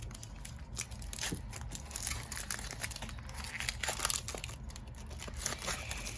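A Pokémon TCG booster pack's foil wrapper being torn open and crinkled by hand, in irregular crackles and rustles.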